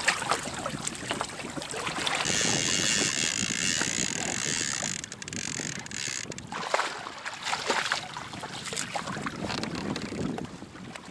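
Water rushing and splashing along the hull of a Hobie Adventure Island sailing kayak under way, with wind on the microphone. A brighter, higher hiss rises from about two seconds in and drops away about five seconds in.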